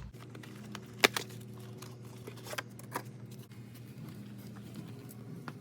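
A few sharp clicks and taps from objects being handled, the loudest about a second in, over a steady low hum.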